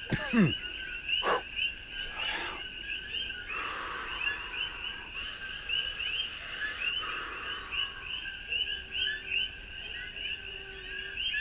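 Night chorus of many coqui frogs, their short chirps repeating constantly. A short falling sound is heard right at the start, and a few soft knocks and a stretch of rustling noise come in the middle.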